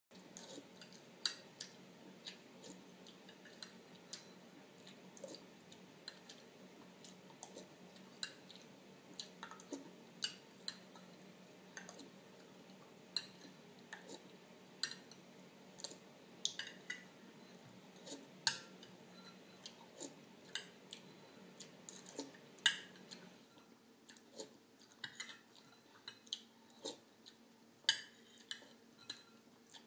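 A spoon clinking against a bowl while someone eats, in short, sharp, irregular clinks about once a second.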